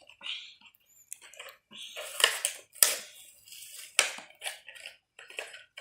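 Plastic blister packaging and cardboard crinkling and crackling as a toy car's package is torn open, with a few sharp snaps.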